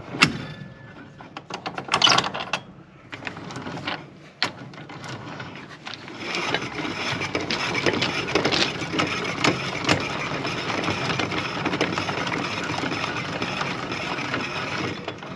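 Swivel trailer tongue jack being hand-cranked, its gearing giving a steady, rapid clicking and grinding as the trailer is jacked up. A few sharp knocks come in the first few seconds as the jack is swung down and set.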